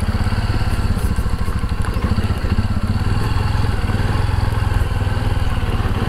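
Motorcycle engine running steadily, a fast, even run of firing pulses.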